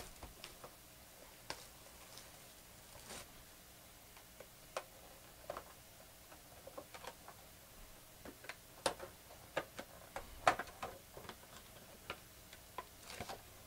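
Scattered light clicks, taps and crinkles of hands handling a shrink-wrapped trading card box, opening it and pulling out the card packs; the handling gets busier in the second half.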